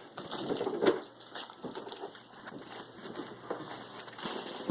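Cardboard shipping box being handled and pulled open: irregular crunching and scraping of the cardboard.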